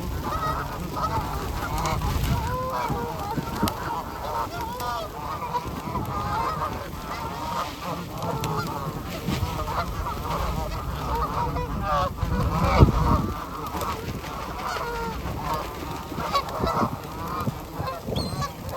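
A flock of geese honking, with many calls overlapping without a break.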